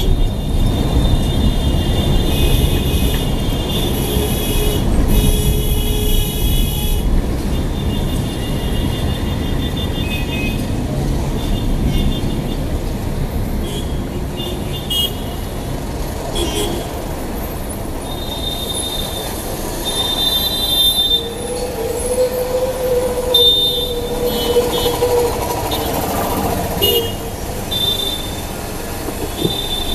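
Dense city traffic heard from inside a car: a steady low rumble of engines and road, with car horns honking again and again in short blasts. About two-thirds of the way through, a lower-pitched horn is held for a few seconds.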